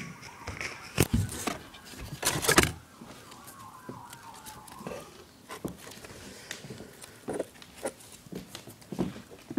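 Knocks and bumps of a handheld phone being moved about over a cardboard box, loudest about a second in and around two and a half seconds in. A faint high tone glides slowly downward behind them.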